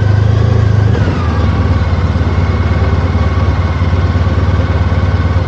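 Motorcycle V-twin engine running on the move, heard from the bike. Its note dips about a second in, then holds steady.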